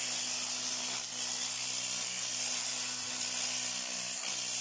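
Fiber laser welding machine running: a steady hiss over a constant low electrical hum.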